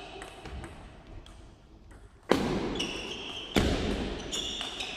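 Table tennis rally: the ball clicks lightly at first, then two sharp loud hits come a little over a second apart in the second half.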